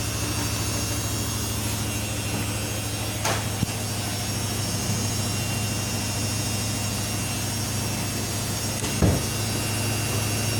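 Samsung P1271 washing machine running with a steady motor hum, with two brief knocks, about three seconds in and again near the end.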